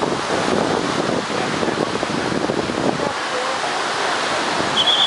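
Wind rushing over the microphone during parasailing, a steady rough hiss whose low rumble thins out about three seconds in. A high warbling tone starts right at the end.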